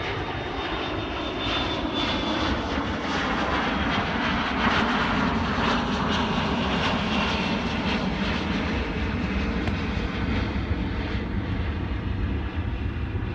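A loud, steady rushing roar that builds a couple of seconds in, is strongest around the middle, then eases slightly.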